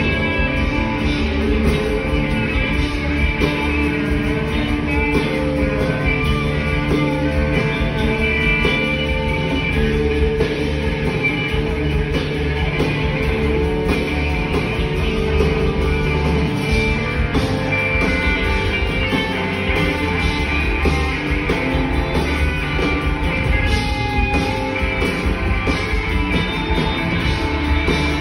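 Live rock band playing an instrumental stretch, electric guitars over a drum kit, heard from the audience in the hall.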